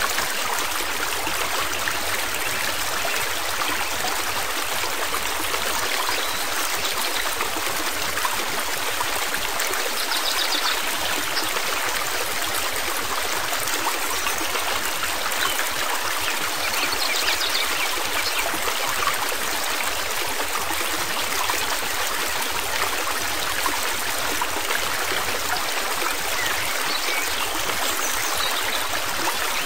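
A stream running steadily, an even rush of flowing water.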